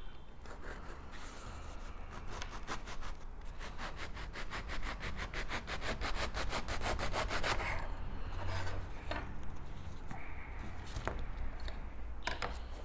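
Rapid back-and-forth scraping strokes, about five a second for several seconds, like a knife sawing through the crusted top of a concha sweet bread. Then a few scattered scrapes and knocks.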